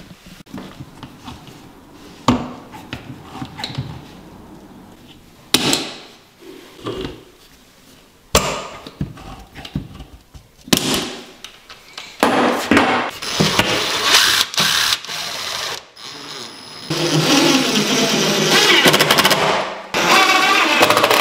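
Cabinet-assembly work sounds: a few sharp knocks of panels and metal parts, then, from about 12 s in, a cordless power driver running in long bursts as it drives screws into the cabinets.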